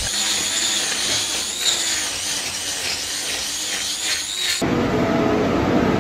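Electric hoof-trimming grinder with a cutting disc working on a cow's hoof: a high whine and rasp that wavers as the disc bites. About four and a half seconds in it gives way abruptly to a feed wagon running with a low rumble and a steady hum.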